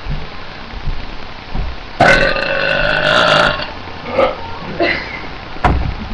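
A girl burping: one long, loud, pitched burp that starts suddenly about two seconds in and lasts about a second and a half, followed by a few short, fainter sounds.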